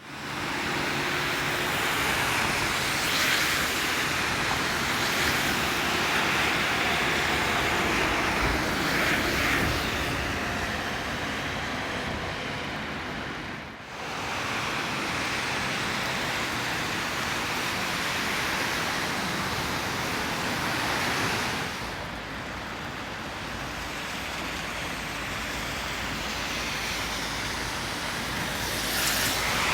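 Steady outdoor city noise, an even rushing like distant traffic, with no voices. The sound drops out briefly about halfway through and changes level again later, as between spliced takes.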